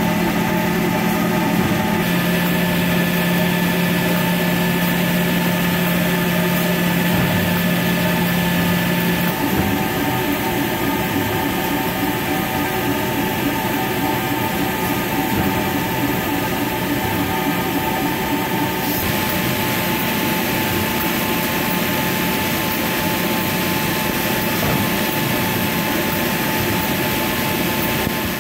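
Toilet-paper converting line running: motors, drives and rollers make a steady machine drone with several constant tones. A strong low hum in it drops away about nine seconds in.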